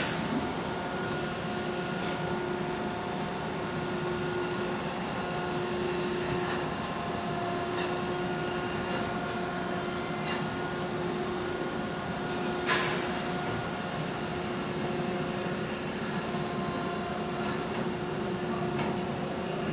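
Machinery of an automated car-body spot-welding line running: a steady hum with a few steady tones, faint intermittent ticks, and one sharp, louder hiss-like burst about 13 seconds in.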